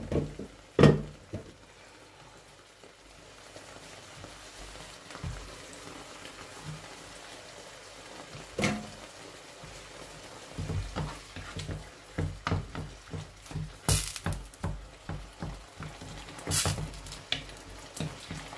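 Tomato sauce with fish simmering with a faint sizzle in a frying pan; from about halfway, a wooden spatula knocks and scrapes repeatedly in the pan, a few times a second, as the ingredients are mashed. A sharp knock about a second in is the loudest sound.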